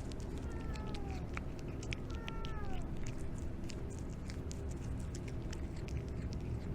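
A cat meowing twice, two short calls whose pitch falls at the end, over a steady low hum and scattered small clicks.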